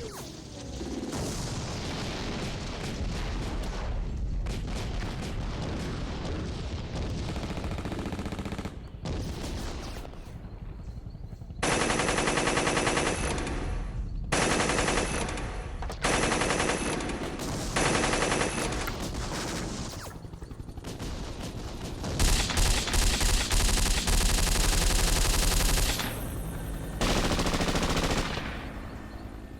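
Machine-gun and gunshot sound effects: bursts of rapid fire separated by short breaks, the longest and loudest burst about two thirds of the way through.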